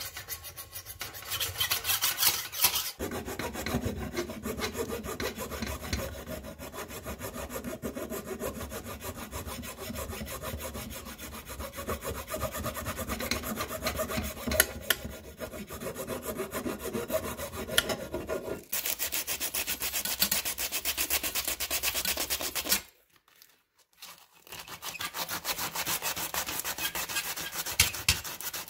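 Hand file scraping over the metal of an old sword's blade and hilt in quick back-and-forth strokes. The scraping stops for about a second and a half near the end, then starts again.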